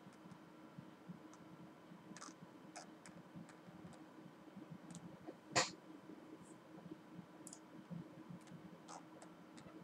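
Scattered faint clicks and taps from a worn costume mask being moved, with one sharper, louder click about halfway through, over a faint steady hum.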